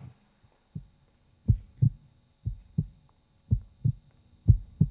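Heartbeat suspense sound effect: low double thuds (lub-dub), about one pair a second, building tension before a winner is announced.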